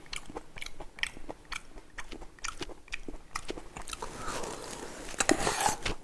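Close-miked chewing and wet mouth clicks of a person eating spoonfuls of chotpoti, a Bangladeshi chickpea street-food dish, with a longer slurp from the spoon about four seconds in.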